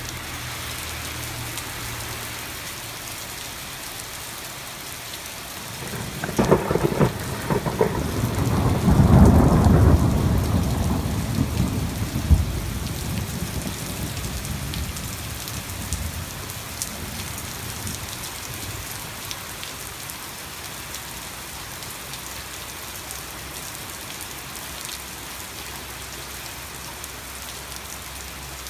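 Heavy thunderstorm rain pouring steadily. About six seconds in, a close thunderclap cracks several times and rolls into a loud low rumble, which dies away over the next ten seconds.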